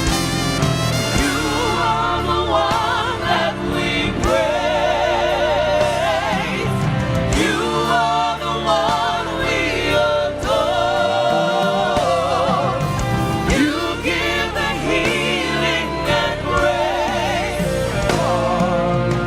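Live gospel worship music: a band plays under singing voices that hold long, wavering vibrato notes.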